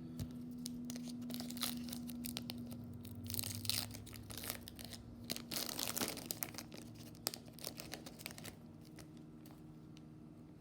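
Foil wrapper of a baseball card pack being torn open and crinkled: a run of crackling tears and rustles, loudest around the middle, thinning out near the end.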